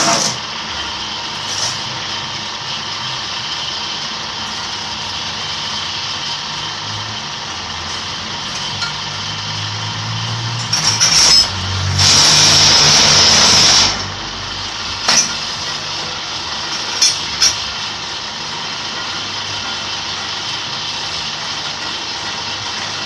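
Electric concrete block press machine running with a steady motor hum made of many tones. About twelve seconds in there is a loud, noisy burst lasting about two seconds, and a few sharp knocks come before and after it.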